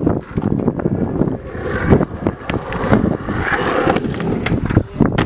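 Skateboard wheels rolling over concrete and ramps, with a series of sharp clacks and knocks from the board hitting the ground and ramp edges, the loudest about two seconds in.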